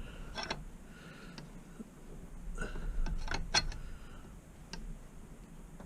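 A few scattered light metallic clicks and scrapes as a motorcycle's rear brake caliper pistons are pushed back against the pads.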